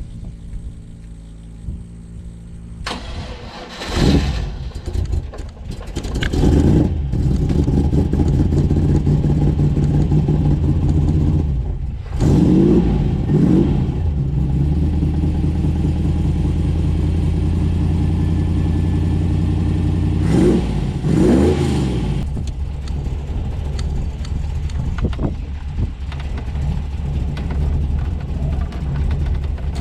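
Triumph TR7 V8 engine starting up and running, blipped in several short revs over the first twenty-odd seconds, then settling to a steady idle.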